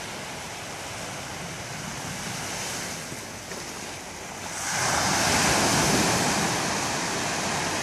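Small sea waves washing in over a stony cobble beach, with wind on the microphone. The surf swells louder about five seconds in.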